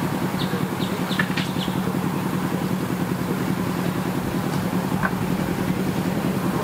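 A close engine idling steadily with an even, fast low pulse. A few brief high chirps sound over it about a second in.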